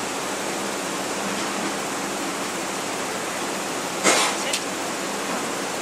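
Steady, even hiss, with a short sharp noise about four seconds in and a smaller one just after.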